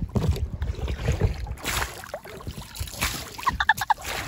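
Oars of an inflatable rowing dinghy dipping and splashing in river water, with wind rumbling on the microphone. A quick run of short, high squeaks comes near the end.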